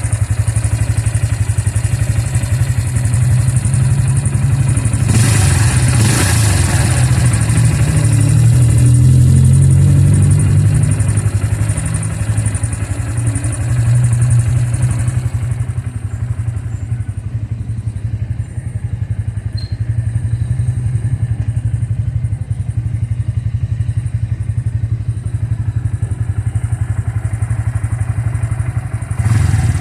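Bajaj motorcycle engine running, revved up for a few seconds about five seconds in and then settling back to a steady idle. The owner's complaint is a strange noise in the engine since it was opened for repair.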